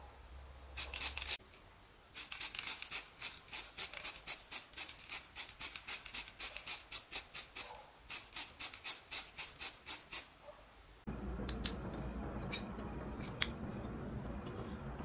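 Aerosol spray-paint can giving short, rapid bursts of spray, about three a second, as a small plastic model part is coated. About 11 s in the sound changes abruptly to a steady low hum with a few light clicks of small plastic parts being handled.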